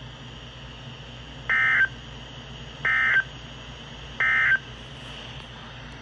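A Midland NOAA weather radio's speaker plays three short, identical bursts of warbling digital data tones about a second and a half apart. This is the Emergency Alert System end-of-message code that closes the severe thunderstorm warning broadcast. A faint steady hiss lies between the bursts.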